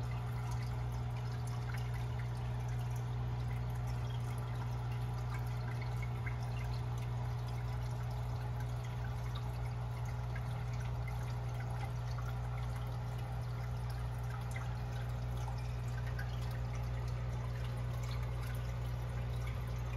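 Aquarium water trickling and bubbling with a steady low hum underneath: an air-driven sponge filter running in the tank.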